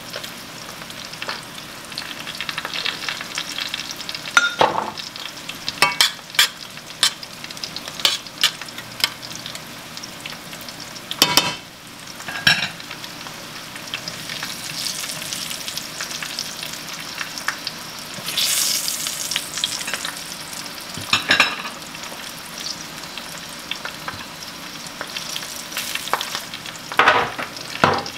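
Slices of fatback frying in grease in a cast-iron skillet, a steady sizzle with scattered sharp pops and clicks. A fork scrapes and clinks against the pan as the pieces are turned.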